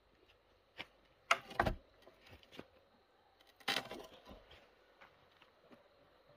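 Scattered knocks and clatters of hard objects being handled, loudest about a second and a half in and again just before four seconds.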